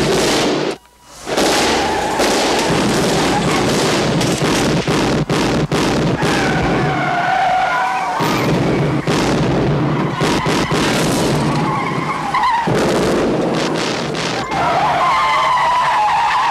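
Action-film street shootout soundtrack: repeated gunshots mixed with car engines and tyres squealing as cars skid away. The tyre squeals stand out about six to nine seconds in and again near the end.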